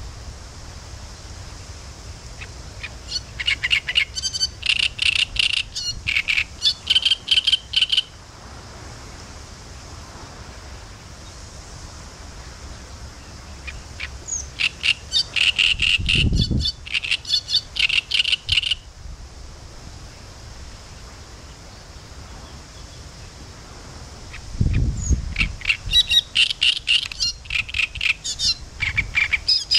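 Great reed warbler singing: three bouts of rapid, repeated notes, each about four to five seconds long, with pauses of several seconds between them.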